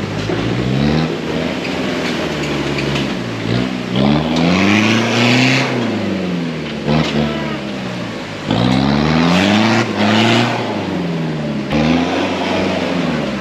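Off-road 4x4 SUV's engine revving up and falling back again and again as it crawls over rocks in a shallow creek, with two spells of water splashing from the tyres.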